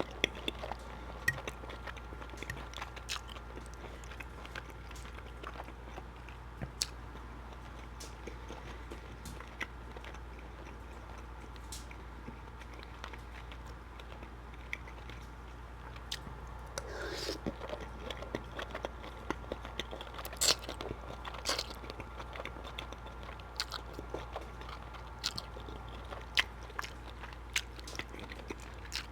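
Close-miked chewing of creamy shrimp Alfredo pasta: irregular wet mouth clicks and smacks, with one longer wet sound about seventeen seconds in. A steady low hum runs underneath.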